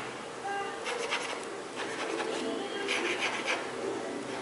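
Mechanical pencil lead scratching and rubbing across paper in sketching strokes, with the loudest strokes about one second in and about three seconds in.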